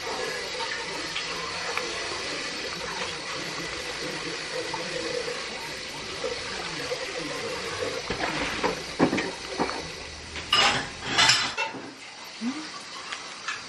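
Water running steadily, with scattered small clicks and knocks and two brief louder noises near the end.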